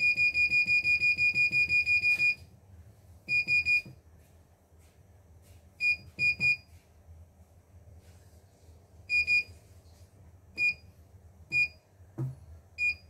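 Key beeps from the control panel of a CNY portable embroidery machine as its buttons are pressed: a fast run of short high beeps, about six a second, for the first two seconds, then single beeps and pairs a few seconds apart. A soft thump sounds near the end.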